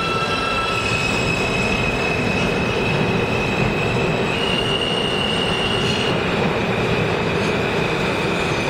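New York City subway train pulling out of the station alongside the platform: steady rumble of the cars and wheels with a high whine that steps up in pitch about four seconds in and drops back about two seconds later.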